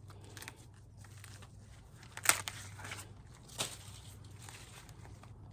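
Corn husks and leaves rustling and tearing as an ear is handled, with a sharp snap about two seconds in and a smaller one about a second later.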